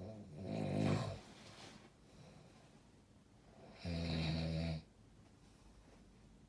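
Two snores about four seconds apart. The first swells over about a second and then fades. The second is a steady, pitched snore just under a second long that starts and stops abruptly.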